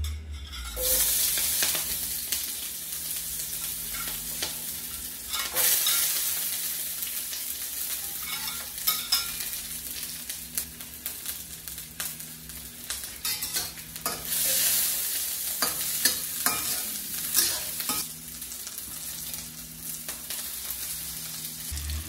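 Chopped food sizzling as it drops into hot oil in a stainless steel wok, then frying steadily while a metal spatula stirs and scrapes against the pan with scattered clicks.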